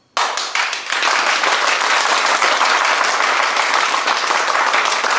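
A crowd bursting into loud, sustained applause, many hands clapping at once, starting abruptly just after the start.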